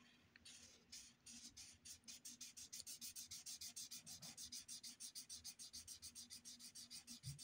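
Felt-tip marker scribbling back and forth on paper while colouring in an area: faint, quick, even strokes, several a second, that pick up about a second in.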